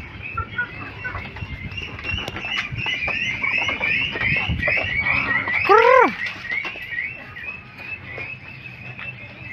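A flock of chickens feeding on grain: many small pecking taps, a rapid run of short high chirps, and one loud squawk sliding down in pitch about six seconds in.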